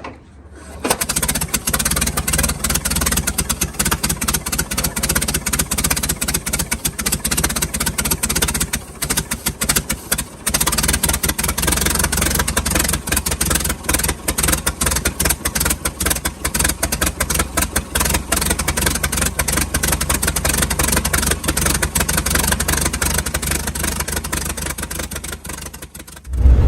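1926 Mack Model AB truck's 4.3-litre four-cylinder engine running, a steady run of rapid firing strokes that starts about a second in. A loud thump sounds near the end.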